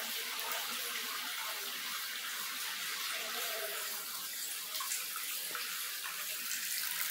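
A steady, even hiss with no distinct knocks or clicks.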